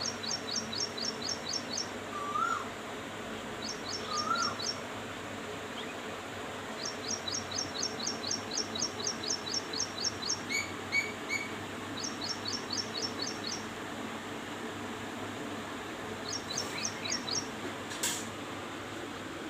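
Asian koel calling, short rising calls heard three times in the first few seconds, amid repeated runs of quick high chirps from another small bird. A single sharp click near the end.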